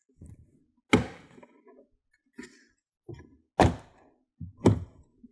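Plastic clips of a Rivian R1S's top frunk trim panel popping loose as the panel is lifted from the body: a string of sharp pops and knocks, three of them loud, about a second in, past three and a half seconds and near the end, with fainter ones between.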